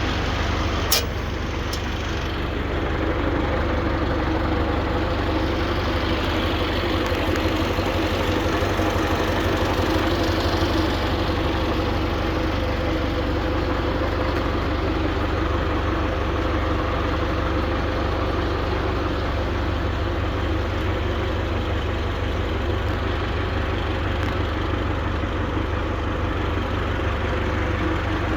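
Tractor engine running steadily while driving a Claas Variant 360 round baler through its PTO on a test spin, the baler's mechanism turning over with it. A single sharp click about a second in.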